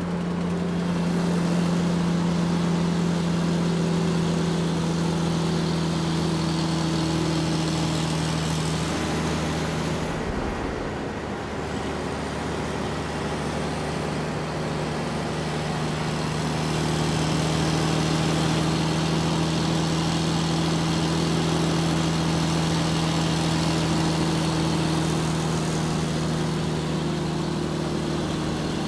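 A steady, machine-like hum over a broad hiss. It dips briefly about ten seconds in and then carries on at a slightly different pitch.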